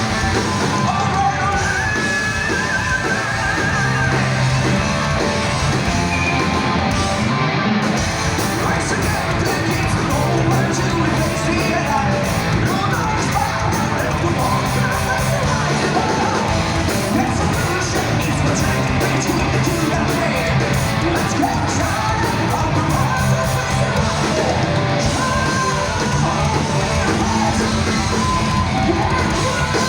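Heavy metal band playing live: electric guitars and drums with a vocalist singing and yelling.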